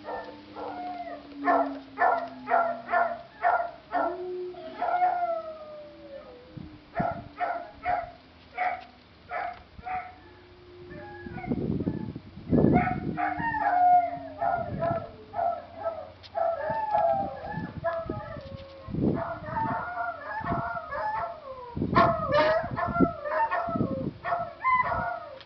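Dogs barking and howling in a video played through a laptop's speakers: runs of quick barks mixed with drawn-out howls. Several low thumps and rustles cut in mid-way and again near the end.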